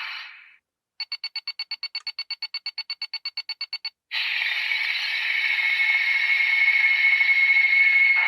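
Electronic transformation-belt sound effect: a rapid string of high beeps, about eight a second for three seconds, then a sustained hissing whir with a steady high tone that swells in loudness.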